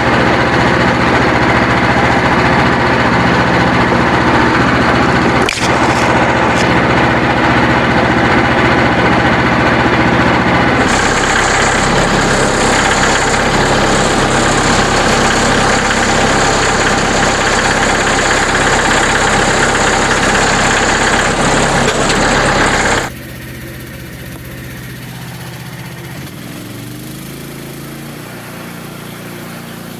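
Engine running loudly and steadily. About eleven seconds in its sound changes, with a steady hiss added high up, and about 23 seconds in it drops suddenly to a much quieter, steady run.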